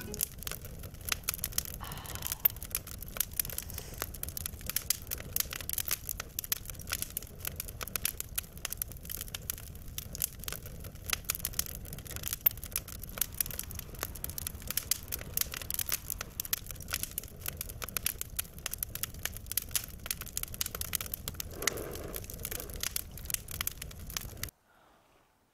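Rain falling: a dense, steady patter of drops ticking over a soft hiss, with a few louder single drops. It cuts off suddenly near the end.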